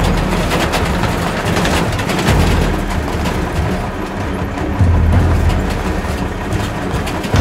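Vehicle engine running while driving, a steady low rumble heard from inside the cab, swelling louder about five seconds in.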